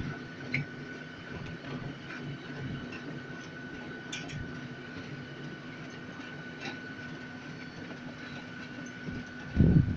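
Elevated park panorama train running along its track, heard from on board: a steady hum with a constant higher whine and a few faint clicks. A sudden louder rumble starts near the end.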